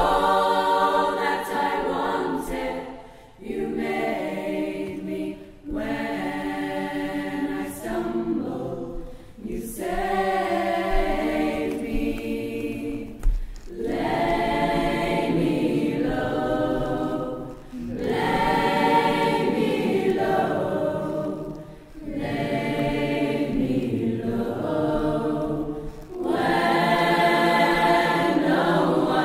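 A large a cappella choir, a young mixed-voice choir joined by a male voice choir, singing in full sustained chords. The phrases run a few seconds each, with short breaks between them for breath.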